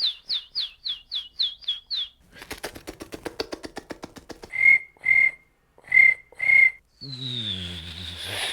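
Mouth-made sound effects in quick succession: about eight quick falling bird chirps, then a rapid flutter of clicks imitating a bird's wings flapping, then four short chirps imitating a cricket. Near the end a hissing, falling whistle over a low hum begins, imitating an airplane.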